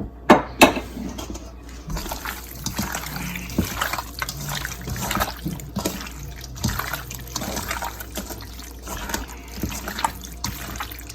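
Raw chicken pieces being mixed with seasoning and Jamaican browning: irregular wet squishing and sloshing, after two sharp knocks in the first second.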